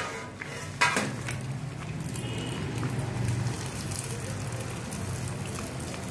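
Hot cooking oil sizzling steadily in a frying pan, with a sharp metal clank about a second in from the steel ariselu press on its steel plate.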